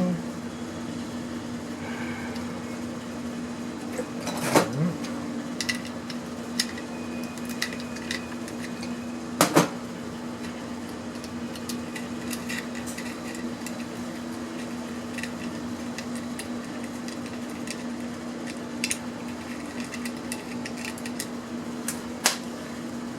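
Small metal and plastic parts clinking and knocking at irregular intervals as electronics are handled and sorted by hand, over a steady low hum.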